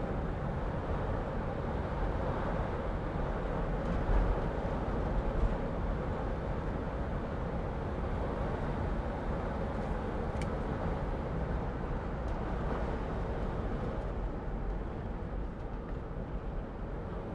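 Steady engine and road noise inside the cab of a 2006 Mercedes Sprinter van driving in traffic, with a single small click about ten seconds in.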